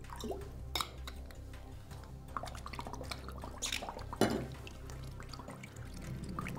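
Water poured from a bottle into a bowl, then bubbling as breath is blown through a drinking straw into it, with irregular small splashes and drips.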